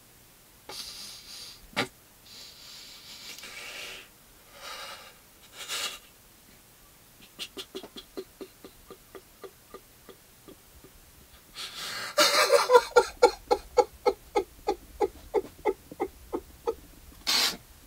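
A man crying: breathy, shaky breaths at first, then from about seven seconds a run of quick sobs, about three or four a second, with the loudest burst of sobbing about twelve seconds in.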